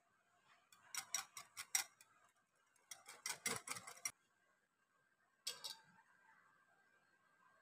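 Wire whisk beating yogurt in a glass bowl, its wires clicking against the glass in two quick runs of ticks, several a second, then a short clatter a little after five seconds in.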